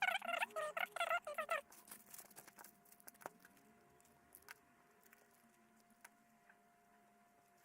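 Rotary tool with a felt polishing pad working a stainless steel watch clasp: a quick run of squeaky chirps for about the first second and a half, then a faint steady motor whine with scattered light ticks.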